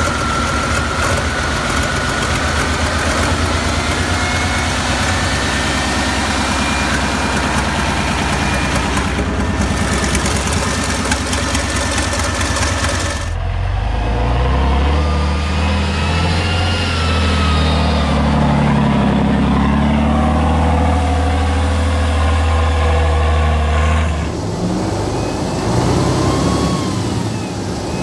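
Tatra air-cooled V12 diesel engine running steadily with a high whine over it. About thirteen seconds in it gives way to a deeper, steady drone of a Tatra 813 truck's V12 under way, with pitch gliding up and down, and the sound changes again near the end.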